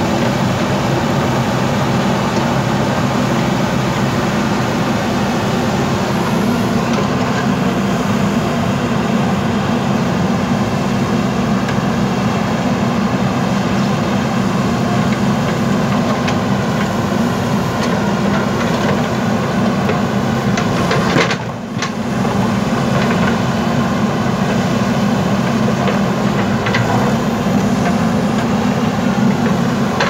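Diesel engines of JCB 3DX backhoe loaders running steadily as the machines dig. The sound drops briefly about two-thirds of the way through.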